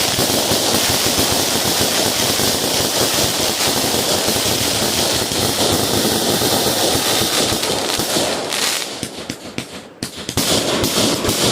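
Fireworks going off close by in a loud, dense crackle of rapid pops. About nine seconds in, the crackling thins to scattered separate cracks, then picks up again near the end.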